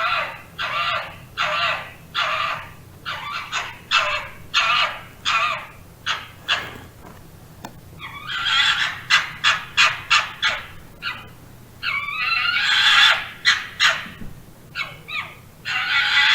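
A fox calling over and over in harsh, raspy barks. The first six seconds hold a steady series of short barks, about one and a half a second. After a brief pause comes a faster chattering run, then a longer drawn-out call, and more barks near the end.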